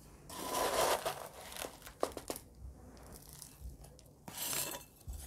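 Potting soil and primula leaves handled while the plants are set into a pot: rustling and crunching in two stretches, with a few small clicks between them.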